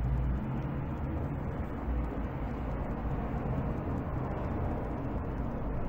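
A steady low rumble of a running engine or vehicle, without clear changes in pitch.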